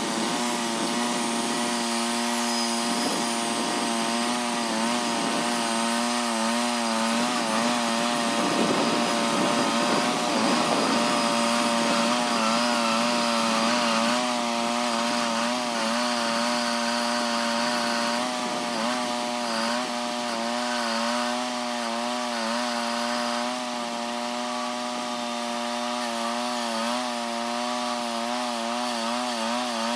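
Engine-driven sawmill running steadily under load, its blade cutting through a large locust log. The blade is slowed by dirt packed in the log's hollow, which the sawyer thinks has dulled it.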